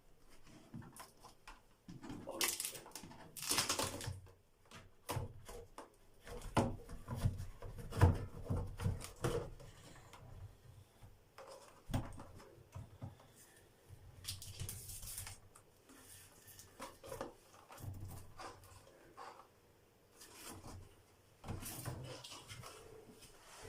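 Irregular knocks, clicks and scraping of hands and tools working on a bathroom ventilation fan unit during its replacement, loudest around eight seconds in.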